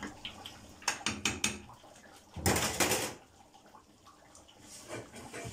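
Metal cookware clattering on a gas stove: a few quick knocks of a spoon and pans about a second in, then a longer clatter of under a second near the middle as a pot or lid is handled.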